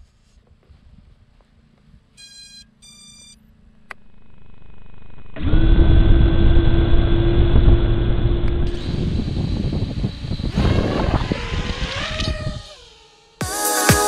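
A few short electronic beeps, then an FPV racing quad's four brushless motors (Xing 2207 2450kv on 5-inch props) spinning up: a rising whir that jumps to a loud, steady whine about five seconds in, the pitch sweeping up and down with the throttle. Electronic music with a steady beat takes over near the end.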